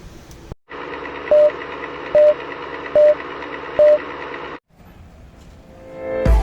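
Four short electronic beeps at one pitch, a little under a second apart, over a steady buzzing hum that starts and stops abruptly. A louder low sound swells up near the end.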